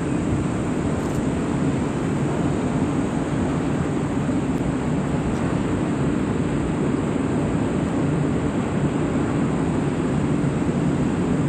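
Union Pacific train crossing the high steel viaduct: a steady, even rumble of the train running across the bridge, with no breaks or single knocks.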